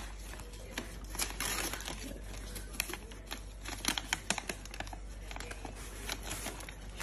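Paper crinkling and rustling, with quick irregular crackles, as hands pull open the folded top of a polka-dot paper gift bag.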